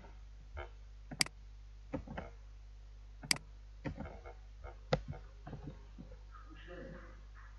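Computer mouse and keyboard clicks: three sharp, loud clicks about a second, three seconds and five seconds in, with softer ticks between them, over a low steady hum.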